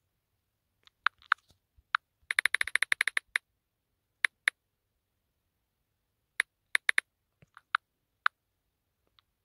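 Key-tap clicks of a smartphone's on-screen keyboard as a short message is typed: a quick run of about a dozen clicks about two seconds in, then scattered single and paired taps while an emoji is picked.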